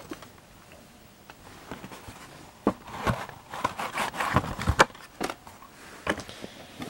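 A VHS cassette being handled and pushed into its box. After a couple of seconds of quiet comes a string of plastic clicks, knocks and scraping as the tape sticks and won't slide in easily.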